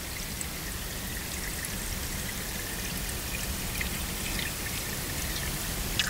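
Underwater recording of white suckers in a creek: steady rushing water noise with a few faint, short squelching snorts from the fish, more like burps than squeaks.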